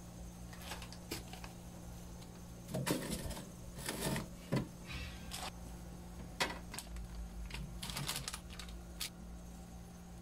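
Plastic refrigerator parts being handled: scattered clicks, taps and knocks as the freezer-compartment cover and drip tray inside a small fridge are moved and fitted, over a steady low hum.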